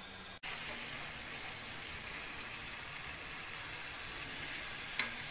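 Spice masala sizzling steadily as it fries in oil in a pan, with one sharp click near the end. The sound cuts out briefly about half a second in.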